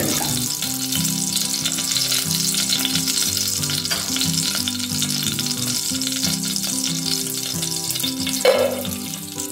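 Melted ghee sizzling and crackling in a hot pot. About eight and a half seconds in, a handful of cashews and raisins drops into the fat with a brief louder burst. Soft background music plays underneath.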